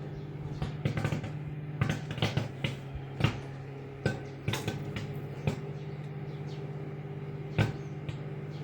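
Microwave oven running with its steady low hum while a bag of caramel popcorn pops inside, sharp irregular pops that come fairly often at first and thin out in the second half.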